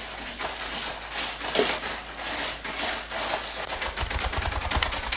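Dry bread being crushed into crumbs by hand inside a plastic zip-top bag on a stone countertop: an irregular crackling and crunching, which turns into a rapid, even pounding about four seconds in.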